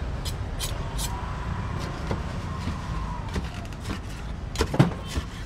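Large kitchen knife cutting through a folded apam balik pancake onto a bamboo cutting board. There are several sharp taps in the first second and a louder knock near the end, over a steady low rumble.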